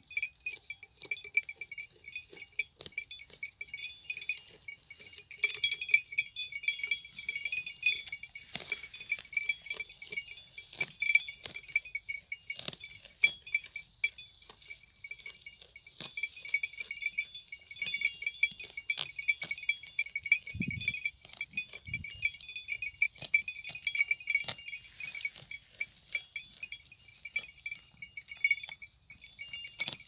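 Small metal bell on a goat's collar jingling steadily as the goat grazes, over frequent crisp clicks and crunches of dry grass being torn off and chewed close by.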